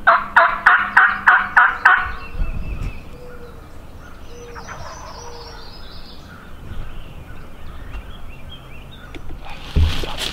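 Turkey yelping: a quick, even series of about eight loud yelps over two seconds, then fainter bird calls. A thump and rustling near the end.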